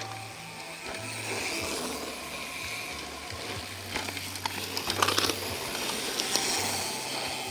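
Downhill mountain bikes passing close, their rear freehubs buzzing with ratchet clicks as the riders coast, over tyre noise on dirt. A burst of rattling clicks about five seconds in is the loudest moment.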